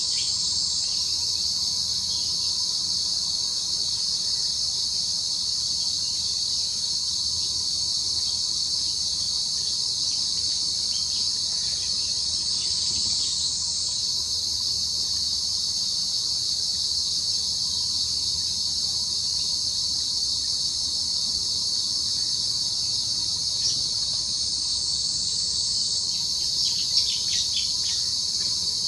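Steady, high-pitched chorus of insects singing without a break, with a few faint clicks near the end.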